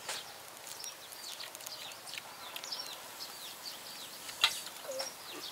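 Outdoor bird calls: many short high chirps repeating throughout, with a sharp click about four and a half seconds in and one brief lower call near the end.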